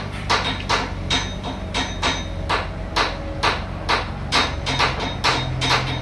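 Rapid, regular hammering, about three sharp strikes a second, over the steady low hum of a forklift engine.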